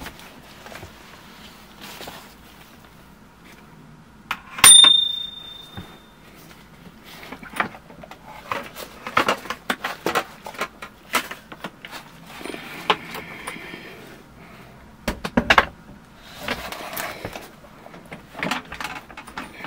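Handling noise from a Segway Ninebot F40 electric scooter being moved and turned over: a sharp metallic click with a brief ring about five seconds in, then a scattered run of knocks and taps, one of them louder about three-quarters of the way through.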